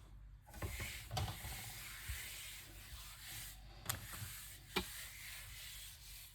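Crust of a crusty French baguette crackling and rasping as the bread is worked, with a few sharp cracks: about a second in, then near four and five seconds.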